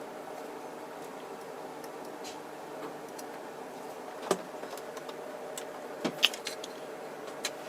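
A few sharp clicks and taps of plastic model-kit parts and tools being handled on a work surface, the loudest about six seconds in, over a steady low hum.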